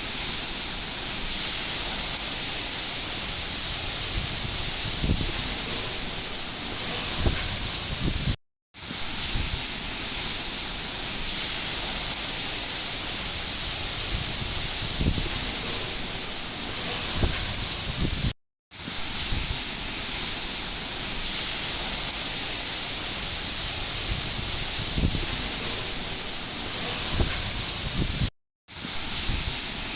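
Heavy rain falling as a steady hiss, with a few short low thuds. It cuts out briefly about every ten seconds, three times.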